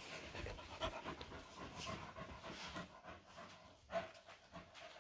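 American Staffordshire terrier panting quietly, with a couple of brief knocks, one about a second in and one near four seconds.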